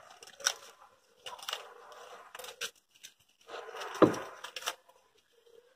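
Plastic wrap being torn and peeled off a blue-painted metal tool part, in irregular rustling bursts, with a sharp knock about four seconds in.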